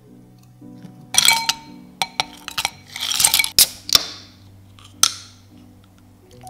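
Dishes, glassware and cutlery being handled: clusters of sharp clinks and clattering knocks, with one last sharp clink about five seconds in.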